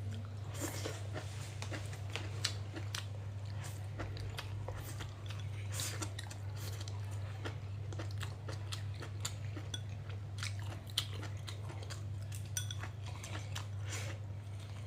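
Close-up chewing and crunching of food, with irregular small clicks, over a steady low hum.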